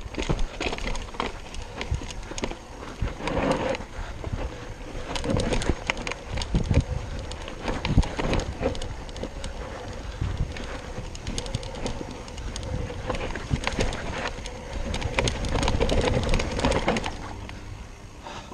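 Yeti SB6 mountain bike descending a dirt trail: tyres running over loose dirt and roots, with the bike rattling and knocking over the bumps and wind on the chest-mounted microphone. The rattling dies down about a second before the end as the bike rolls onto smoother ground.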